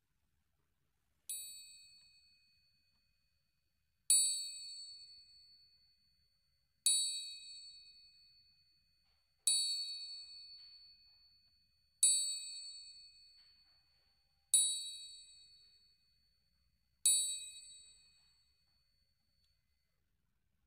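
A small, high-pitched bell struck seven times, about two and a half seconds apart, each stroke ringing out and fading before the next; the first stroke is softer. It is rung as the church bells that open the service.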